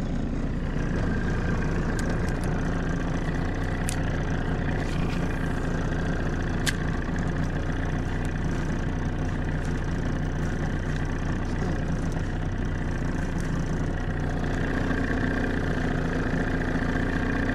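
Outboard motor of a 16-foot Grumman boat running at a steady speed under way, an even engine hum with no change in throttle.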